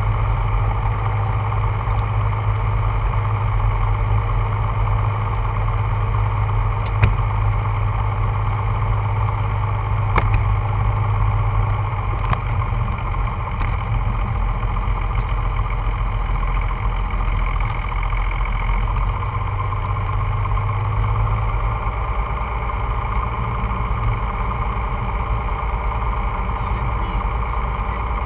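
Rockwell Commander 114's six-cylinder Lycoming IO-540 engine and propeller running at idle during the landing rollout, heard as a steady drone inside the cockpit. A few sharp knocks come through about a quarter and a third of the way in, and the low hum loosens about two-thirds of the way through.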